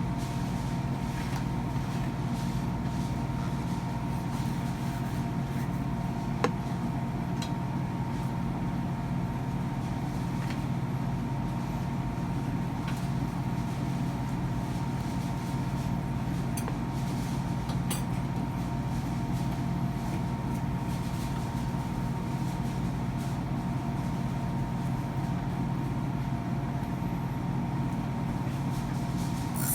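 Steady mechanical hum holding several constant tones, with a few faint clicks and taps scattered through it.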